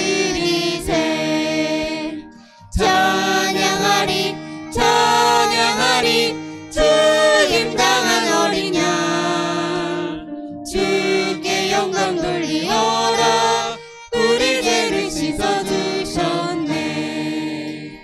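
Worship team singing a Korean hymn, a woman's and a man's voices in the lead, with acoustic guitar and violin accompaniment. The singing comes in phrases with short breaths between them and dies away near the end as the song finishes.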